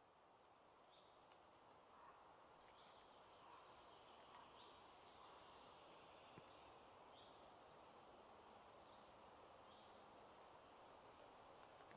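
Near silence: faint forest ambience with small bird calls, a few short high chirps and a quick run of descending chirps about seven seconds in.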